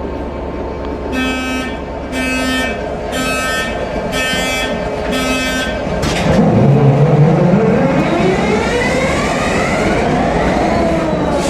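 Five evenly spaced electronic warning beeps, then a sharp click, then a train pulling away with a steady rising whine as it gathers speed.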